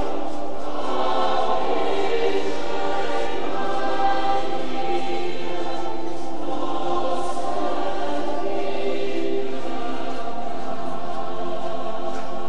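A large crowd of pilgrims singing a hymn together, with long held notes.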